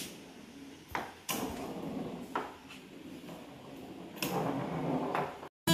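Foosball table in play: the ball and rods knock and clack against the plastic players and the table, in irregular sharp knocks about a second apart.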